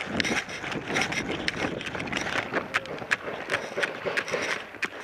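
Running footsteps crunching on a dry dirt trail, with irregular sharp clicks of gear rattling. A low rumble of wind sits on the microphone throughout.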